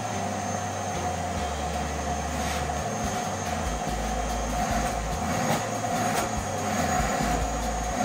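Vacuum cleaner running steadily: a constant whine over the rush of air.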